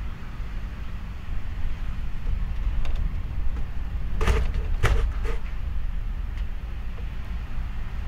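Gale-force wind heard from inside a bedroom, a steady low rumble that rises and falls with the gusts. A few sharp knocks land about four to five seconds in, the loudest moment.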